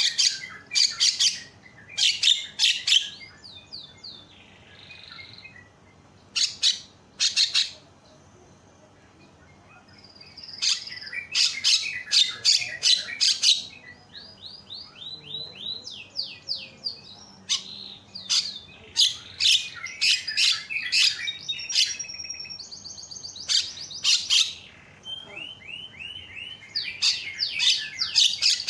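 Javan myna singing: bursts of harsh, raspy chattering notes alternating with quick runs of rattling, clicking notes and short high whistles, with a lull of several seconds after the first few bursts.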